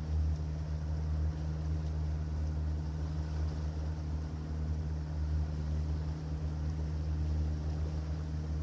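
A boat's engine running steadily under way, an even low drone that does not change.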